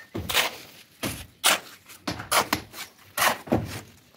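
Sledgehammer blows on brick masonry during manual demolition: about seven sharp strikes, unevenly spaced.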